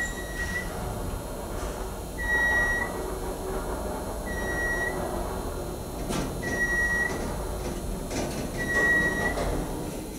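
Baxter & Sons traction elevator sounding a short, high electronic beep five times, about two seconds apart, over a low steady rumble.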